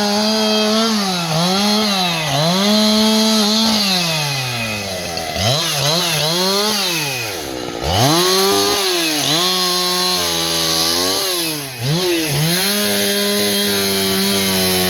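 Two-stroke chainsaw running at high revs, the throttle let off and opened again many times, so the engine note drops and climbs back repeatedly.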